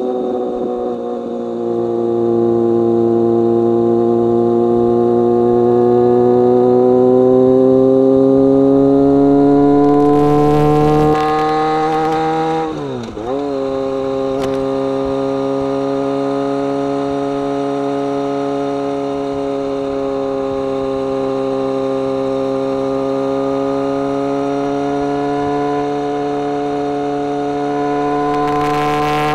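BMW K1200R motorcycle's inline-four engine and exhaust pulling under way. The revs climb steadily for about ten seconds, drop sharply with a gear change about halfway through, then hold steady at a lower pitch, rising slightly near the end.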